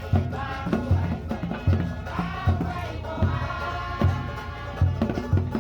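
Music: voices singing over a steady, repeating drum beat.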